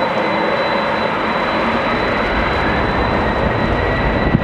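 Boeing 717's two rear-mounted Rolls-Royce BR715 turbofans running as the jet taxis: a steady rumble with a constant high-pitched whine.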